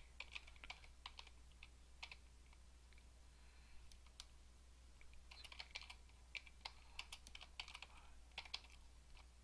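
Faint typing on a computer keyboard: irregular keystrokes in short runs, thinning out for a while partway through, over a low steady hum.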